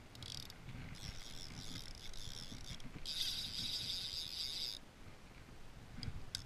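Fly reel's click-pawl ratchet buzzing as the spool turns, in several bursts of one to two seconds, the longest in the middle and a short one near the end.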